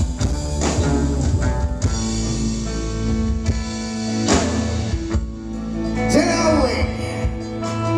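Live band of electric guitars, bass guitar, keyboard and drums playing an instrumental passage of a country ballad between sung lines, with bending, gliding notes about six seconds in.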